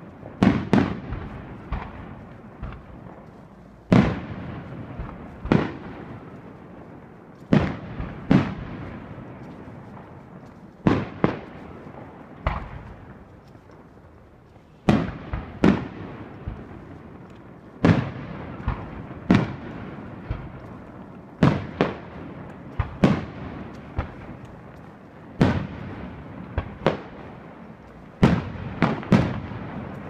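Aerial fireworks bursting overhead: sharp bangs every second or two, some in quick pairs, each trailing off in a fading rumble.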